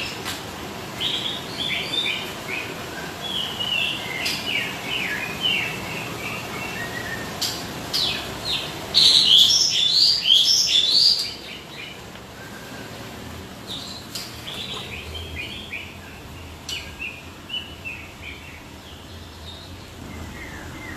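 Songbirds kept in hanging cages chirping and twittering in quick repeated phrases, loudest and busiest about nine to eleven seconds in.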